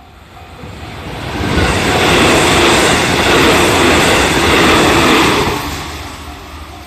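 A JR Central 313 series electric train passes over a level crossing. The sound swells to a loud peak about a second and a half in, holds for about four seconds, then fades. A crossing warning bell dings at about two strokes a second; it is drowned while the train goes by and heard again near the end.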